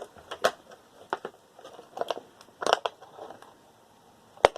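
Irregular clicks and knocks of tools and metal parts being handled while a screw is taken out of a desktop computer case, with one sharp knock near the end.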